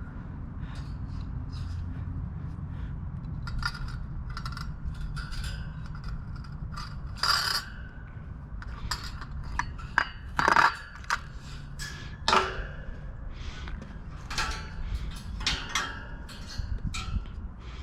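Wire being threaded and twisted against a steel Wald wire basket and bike rack: irregular metallic clicks, clinks and scrapes, the sharpest about 7, 10 and 12 seconds in, over a steady low background rumble.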